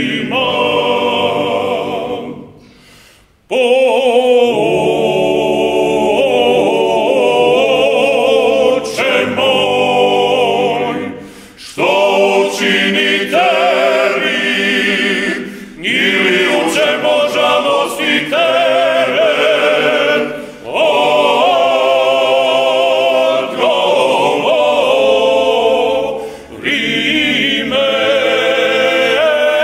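Croatian klapa, a male a cappella ensemble, singing a slow song in close harmony. Long sustained phrases with some vibrato are broken by short breathing pauses, the deepest about three seconds in and shorter ones at a few points later.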